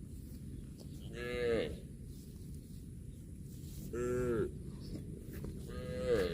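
Cattle mooing: three short moos, each rising and falling in pitch, about a second in, at about four seconds, and a third starting near the end, over a steady low background rumble.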